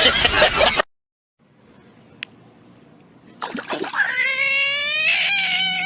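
A loud noisy sound cuts off suddenly under a second in. After a quiet stretch, a cat gives one long, drawn-out meow of about two seconds, rising at first and then holding steady in pitch.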